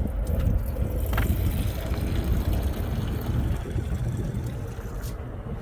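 Diesel fuel draining from a Davco fuel filter's drain valve into a catch container, heard under a steady low rumble.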